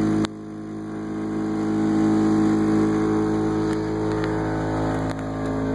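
Jeep Wrangler engine idling steadily. A sharp click comes about a quarter-second in, after which the sound is briefly quieter before it evens out.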